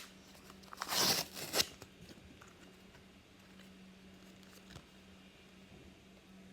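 Foil wrapper of a Pokémon card booster pack being opened, a loud crinkling rip about a second in, followed by faint handling.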